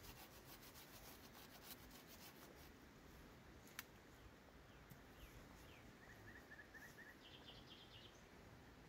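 Faint, quick rasping strokes of a hand pruning saw cutting a thin branch for the first three seconds, then a single sharp click near four seconds in. Small birds chirp in short series after that.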